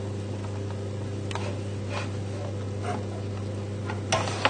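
A steady low hum with a few faint clicks and taps as a metal baking tray of roasted vegetables is handled with an oven glove.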